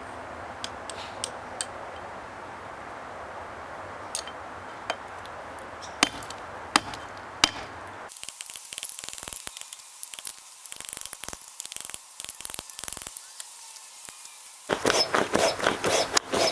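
A homemade forge fire hissing steadily, with sharp pops, three of them loud and close together about six to seven and a half seconds in. The hiss stops abruptly about eight seconds in, leaving scattered faint clicks, and loud quick scuffing and rustling comes in near the end.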